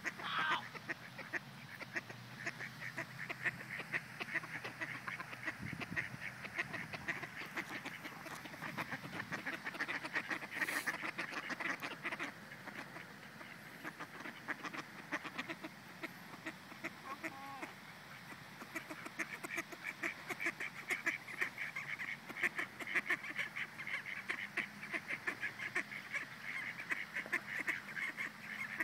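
Mallards and white domestic ducks quacking, many short calls in quick succession that grow thicker over the last third.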